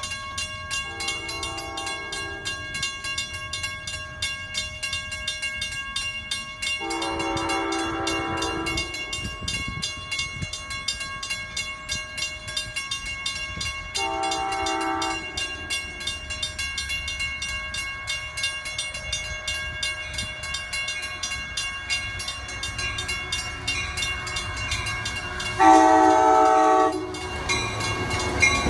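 Grade-crossing bells ringing steadily while an Amtrak push-pull train, led by a cab car, approaches and sounds its multi-chime horn four times, the second blast the longest and the last the loudest, as a crossing warning. Near the end the train rolls past with a rising rumble of wheels on rail.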